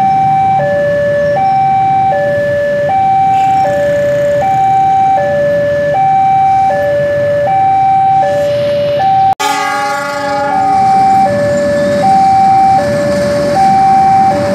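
Electronic two-tone railway warning alarm alternating high and low, each tone held about 0.7 s, over the low running of a KAI CC206 diesel-electric locomotive. About nine seconds in, a brief many-toned locomotive horn blast sounds, and the alarm carries on as the locomotive passes close by.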